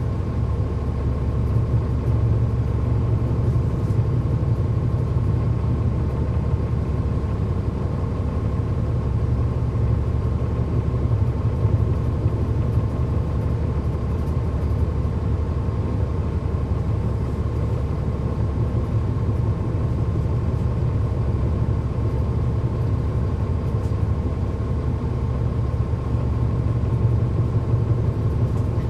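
Cummins ISL9 six-cylinder diesel engine of a 2009 NABI 40-SFW transit bus running steadily. It makes a constant low rumble with a steady high tone over it, and there are no rev changes or gear shifts.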